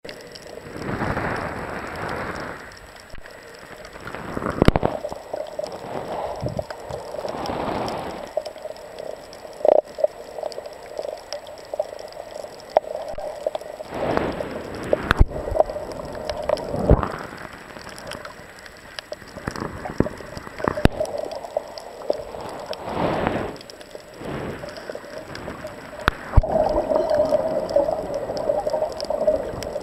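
Muffled underwater sound picked up by a camera held beneath the surface: water sloshing and gurgling in irregular swells every few seconds over a steady low hum, with a few sharp clicks.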